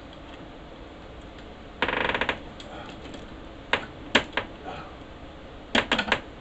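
Ratchet wrench clicking in a quick half-second run about two seconds in, followed by several separate sharp clicks and knocks of metal hardware.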